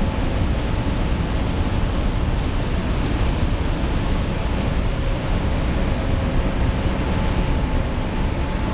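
Wind rumbling on the microphone on a ferry's open deck, over a steady hum from the ship's engines.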